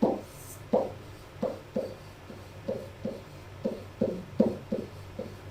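A series of short, irregular taps, about two to three a second, over a faint steady hum.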